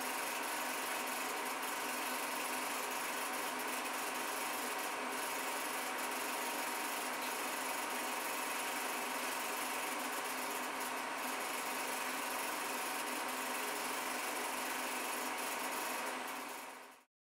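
Film projector mechanism running with a steady rattle and whir, unchanged throughout, fading out about a second before the end.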